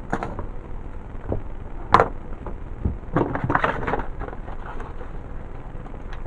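Handling noises from working on a slingshot and its rubber bands: a sharp click about two seconds in and a cluster of rustles and light knocks a second later, over a steady low background hum.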